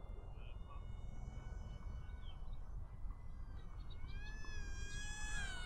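Thin electric whine of the Eachine Mini Wing Dragon's motor and propeller as the small RC plane flies overhead. It is faint at first and grows clearer after a few seconds, its pitch sliding up and down and dipping near the end as the throttle and distance change. A steady low rumble runs underneath.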